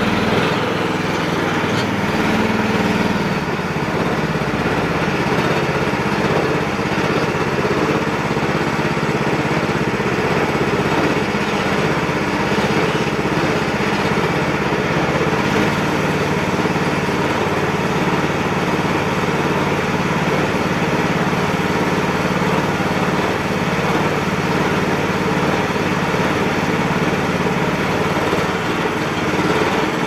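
A small engine running steadily.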